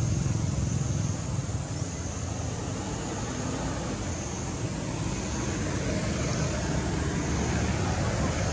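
Steady low rumbling background noise with a hiss above it and no distinct events.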